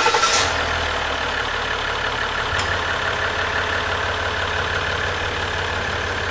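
Ram EcoDiesel 3.0-litre V6 turbodiesel idling just after being started on fresh oil at the end of an oil change. It is louder for the first half-second, then steady.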